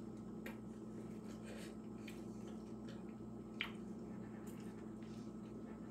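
Quiet eating sounds: soft squishes and faint clicks of a fork working at a soft fried sweet-plantain fritter, with one sharper click about three and a half seconds in, over a steady low hum.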